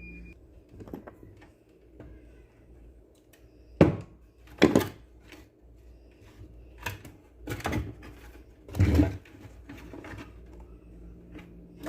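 Scattered knocks and clicks of blender parts being handled during reassembly, the loudest two about four and five seconds in and another near nine seconds.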